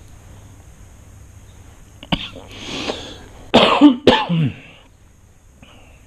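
A person coughing twice in quick succession, after a sharp click and a short rush of breath.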